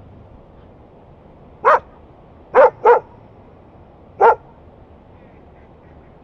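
Dog barking four times, one bark, then a quick pair, then one more, over a faint steady background hiss. The barks are territorial.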